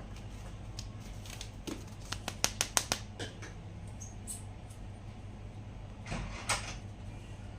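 Handling of plastic toys or their packaging: a quick run of about eight sharp clicks and taps about two seconds in, then a short rustle a little after six seconds, over a steady low hum.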